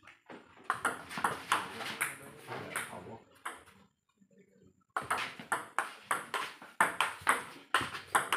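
Table-tennis ball clicking off the rubber bats and the table top in a rally, a quick run of sharp ticks about three a second. The ticks break off for about a second near the middle, then start again.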